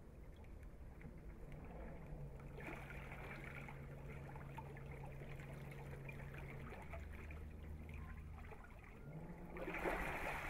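Classic-style electric runabout manoeuvring at low speed: a low, steady motor hum that shifts pitch partway through as the throttle changes, over water trickling and churning around the hull. About ten seconds in, the propeller churns the water louder as power comes up.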